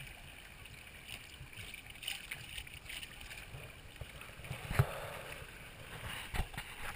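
Water splashing and gurgling against the hull of a Hobie Tandem Island sailing kayak under way, muffled through a waterproof camera case, with scattered knocks and a louder thump about five seconds in.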